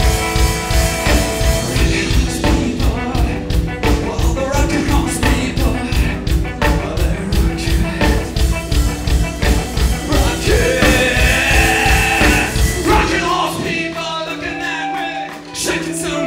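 A rock band playing live with drums, bass and electric guitars, with some singing, at a fast steady beat; about thirteen seconds in, the drums and bass drop out and the guitars carry on alone.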